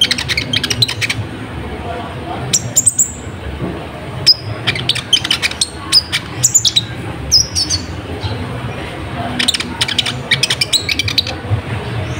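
Brown-throated sunbird (kolibri ninja) singing: sharp high chirps and quick clusters of ticking notes in uneven bursts, over a steady low hum.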